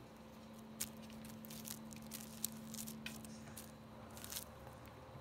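Thin plastic bag crinkling and rustling as a kitten bats at it with its paws: a run of short, irregular rustles and light taps. A faint steady low hum sits under the first few seconds.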